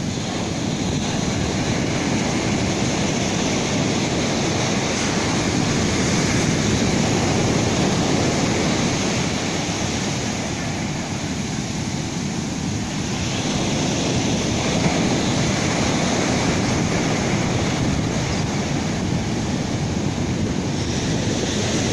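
Rough ocean surf breaking on a beach: a steady, heavy wash of crashing waves that eases a little about halfway through and swells again.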